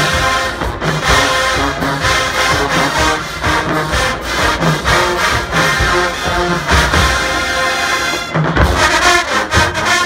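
HBCU show-style marching band playing loud brass with heavy drum hits, a short break a little past eight seconds, then a loud hit.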